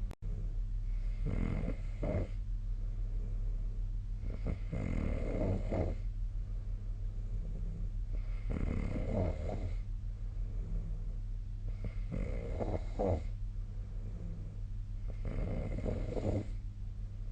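A sleeping person snoring: five snores in a slow, even rhythm about three and a half seconds apart, over a steady low hum.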